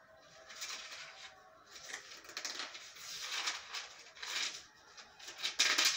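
Paper pages of a Bible being leafed through by hand: a series of soft, crisp page rustles, the loudest just before the end.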